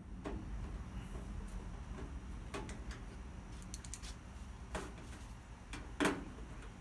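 Scattered light clicks and knocks from a hand tool working at the sheet-metal back panel of a Kenmore electric dryer, the sharpest knock about six seconds in, over a low steady background rumble.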